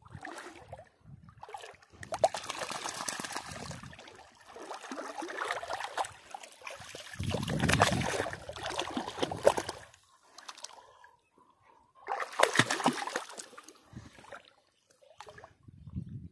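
Shallow muddy water splashing and sloshing as a Doberman rolls and moves about in it, coming in irregular bursts with short pauses between them.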